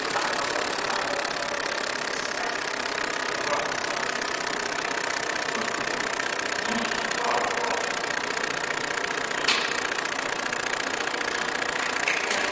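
Fiber laser marking machine running while it engraves an MDF bowl: a steady mechanical hum with an even hiss and a thin high whine.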